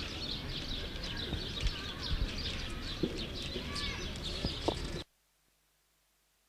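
Outdoor ambience of many small birds chirping and whistling, over a low background rumble; it cuts off abruptly about five seconds in.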